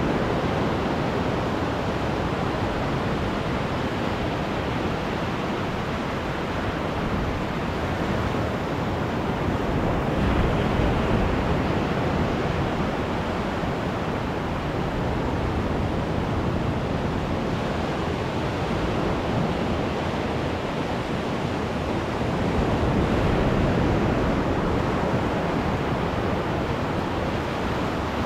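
Ocean surf breaking and washing up a sand beach at the water's edge, a continuous rush that swells twice as waves wash in.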